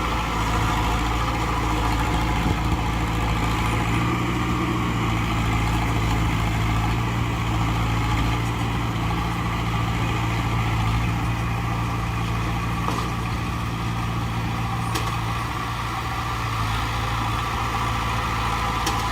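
Heavy diesel engine of earthmoving machinery running steadily at an even speed, with a few faint clicks near the end.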